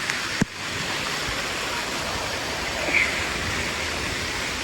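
Steady rush of falling and splashing water from water-park features, with a sharp knock about half a second in and a brief high-pitched sound about three seconds in.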